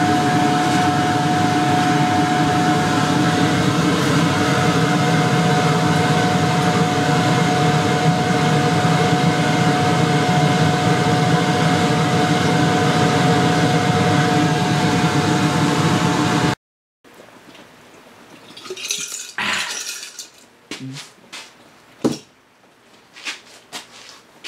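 1990 Johnson 15 hp two-stroke twin outboard running steadily on a swapped-in all-metal carburettor. It cuts off abruptly about two-thirds of the way through, and a few faint knocks and rustles follow.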